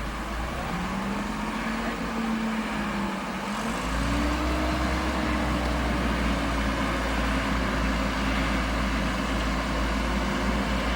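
Heavy diesel engine of earth-moving machinery running. Its engine speed swells and dips, then picks up about four seconds in and holds steady and louder.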